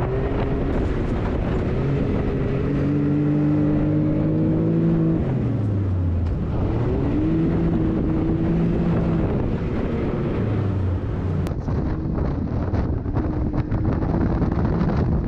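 An off-road vehicle's engine runs hard through the dunes. Its pitch holds steady, drops about five seconds in, climbs again, then shifts lower and higher, over a constant rush of wind noise.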